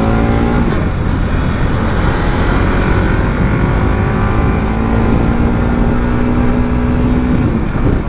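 Motor vehicle engine running under way. It rises in pitch in the first second as it accelerates, then holds a steady note, over a heavy low rumble of wind and road noise.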